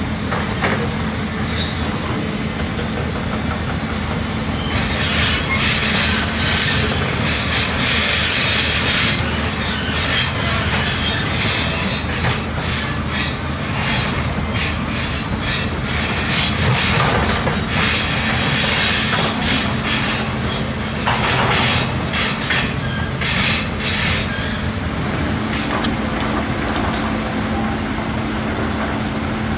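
Crawler excavator's diesel engine running steadily, with a high metallic squeal and repeated clanks from about five seconds in until near the end.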